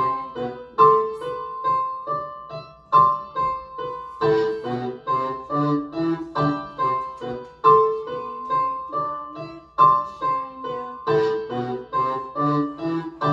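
Piano-toned keyboard music: a phrase of struck chords and melody notes that repeats, with bass notes underneath.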